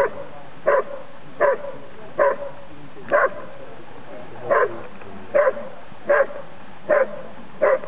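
Briard barking at the helper in the hide, the bark-and-hold of a protection exercise: short single barks about every three-quarters of a second, with one longer pause midway.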